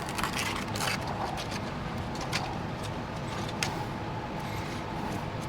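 A few faint, light clicks of small parts being handled over a steady background hum.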